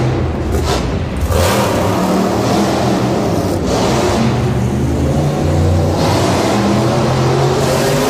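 Monster truck engines revving loudly, the pitch climbing and dropping with three hard surges, about one and a half, four and seven and a half seconds in.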